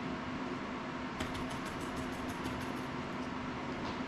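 Steady low room hum with one constant low tone, and a quick run of light clicks about a second in, roughly seven a second for under two seconds, from small parts and tools being handled at a soldering bench.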